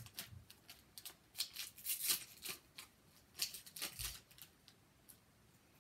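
Short, dry crinkles and rustles of a Pokémon booster pack's foil wrapper and cards being handled, coming irregularly, with a soft low bump about four seconds in.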